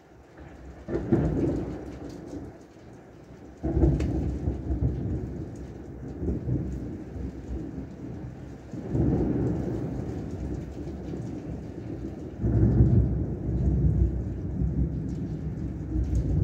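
Heavy rain falling with a steady hiss, under deep rumbles that surge up suddenly and fade, five times.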